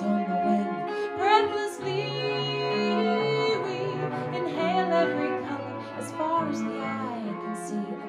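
Live acoustic-band music: a bowed cello holding long low notes under electric guitar and baritone ukulele, with a woman singing in gliding phrases.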